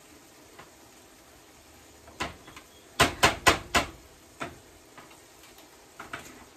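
Wire potato masher knocking against a metal pot of mashed potatoes: a light tap, then four sharp knocks in quick succession about three seconds in, one more a moment later, and two lighter knocks near the end.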